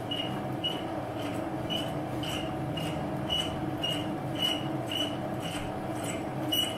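Metal lathe running slowly under heavy load as a scissor knurl's wheels roll a pattern into hard machine-grade steel on power feed: a steady hum with a short squeak repeating about twice a second.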